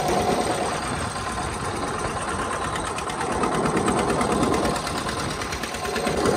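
Diesel farm tractor engine running steadily while driving on the road: a fast, even chugging.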